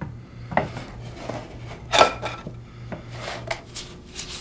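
Scattered light knocks and clicks of a wooden frame and support sticks being handled on a workbench, the loudest about two seconds in, over a faint steady low hum.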